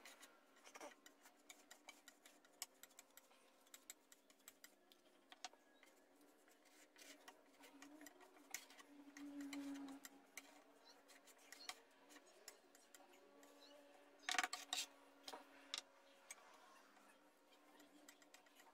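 Faint scraping and light clicking of a flexible steel spatula working wood filler into holes along a plywood edge, with a few sharper clicks a little past the middle.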